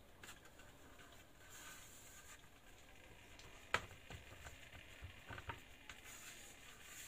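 Faint soft pats and rubbing of hands shaping brioche dough on a floured metal baking sheet, with one sharp tick about halfway through.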